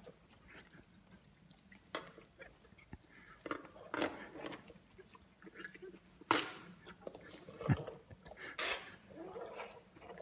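Asian elephant chewing and crunching watermelon, with irregular crunches, the loudest about four, six and nine seconds in.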